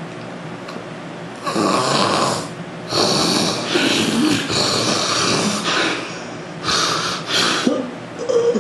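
A man snoring heavily in his sleep: several loud, rough snores, starting about a second and a half in, with a short pitched snort near the end. This is snoring of the kind the uploader ties to nasal obstruction after weight gain.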